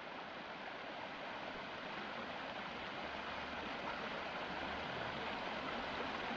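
Steady rush of water falling at a waterfall, an even hiss-like roar with no breaks.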